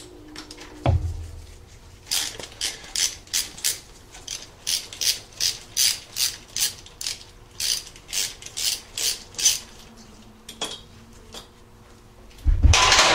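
Socket ratchet clicking in an even rhythm, about three strokes a second, as the ignition coil's mounting bolt is backed out. A short, louder clatter with a thump comes near the end.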